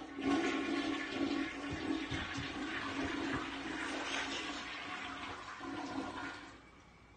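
Toilet flushing: a loud rush of water over a steady hum, tailing off about six and a half seconds in.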